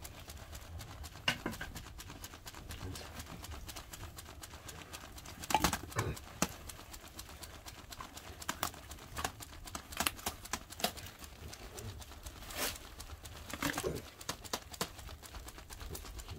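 Irregular clicks and knocks, with a few louder ones about six, thirteen and fourteen seconds in, over a low steady rumble.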